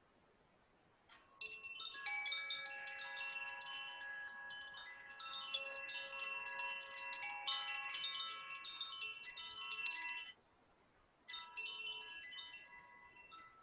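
Metal chimes shaken into a cluster of many overlapping high ringing tones, with fresh strikes throughout. It starts about a second in and breaks off abruptly after about nine seconds, then rings again briefly near the end, heard over a Zoom call.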